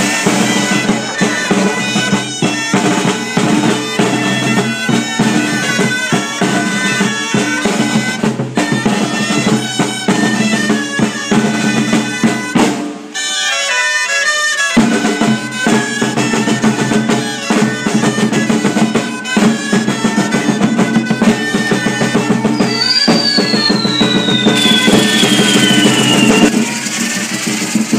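Music: a reed-pipe melody over drumming, with a brief break in the bass about thirteen seconds in and a long falling whistle near the end.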